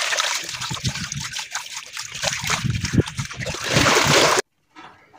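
Running water from a hose splashing and trickling into a plastic tub as brined napa cabbage is rinsed by hand, louder just before it cuts off suddenly about four seconds in.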